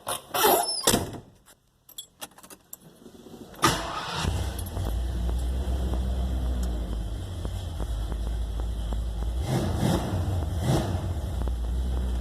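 Clicks and a jingle like keys, a single sharp knock, then a car engine catches and settles into a steady low idle that runs on. The car is the 1977 Ford Thunderbird whose door handle was just replaced.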